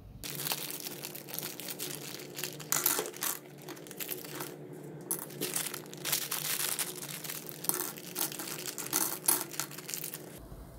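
M&M's candies poured from a crinkling bag onto the metal plate of an open waffle iron, the hard-shelled candies clattering and rattling as they land, with a short lull about four and a half seconds in.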